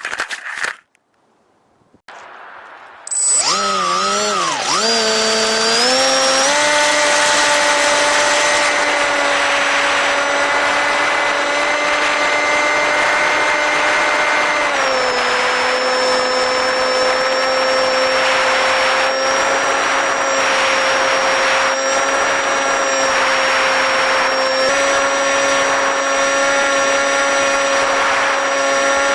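Electric motor and propeller of a small RC park-flyer plane spinning up about three seconds in, the whine climbing in pitch as the throttle is opened for takeoff, then running at a steady high whine that steps down slightly and later back up with throttle changes. A short burst of noise comes just before, at the very start.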